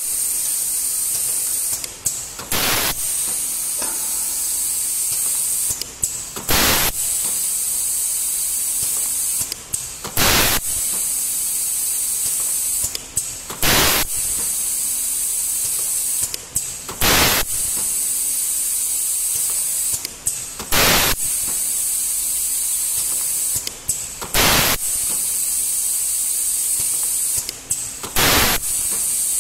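Pneumatic wire label folding machine cycling: a steady high air hiss, broken about every three and a half seconds by a short sharp blast of air as each stroke folds a sticker around a wire. Eight strokes come at an even pace.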